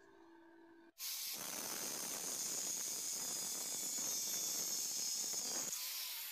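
Angle grinder with an abrasive cut-off disc cutting through a steel flat bar clamped in a vise: a steady, loud hissing grind with a high whine. It starts abruptly about a second in.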